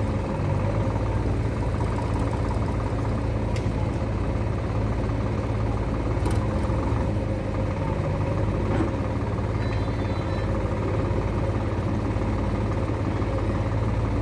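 Sonalika Sikandar DI 50 RX tractor's diesel engine idling steadily, with a few faint ticks.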